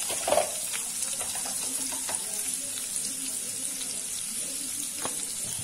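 Cumin seeds and asafoetida sizzling steadily in hot oil in a steel kadai, an even hiss.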